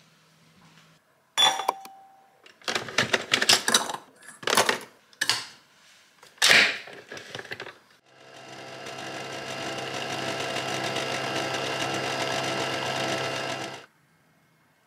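Nespresso capsule coffee machine brewing into a mug: a steady whirring hum for about six seconds that cuts off suddenly. Before it, a series of sharp clicks and knocks.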